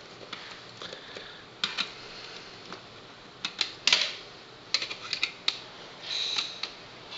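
Irregular plastic clicks and snaps as the tabs holding a computer optical drive's plastic faceplate are pried loose by hand, with the loudest snap about four seconds in and a brief scrape a little before the end.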